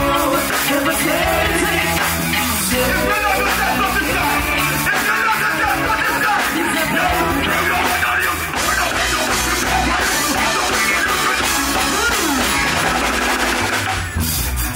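Live reggae band playing, with drum kit and keyboards, and a male vocalist singing into a microphone over it.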